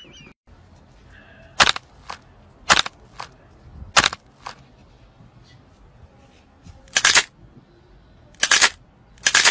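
A series of sharp hand smacks. The first six come in pairs, a loud one then a softer one about half a second later; three slightly longer smacks follow in the last few seconds.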